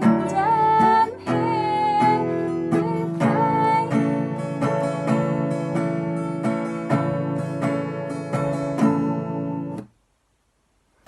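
A song with strummed acoustic guitar and a sung melody. The voice drops out after a few seconds, and the guitar chords play on until the music cuts off abruptly about ten seconds in.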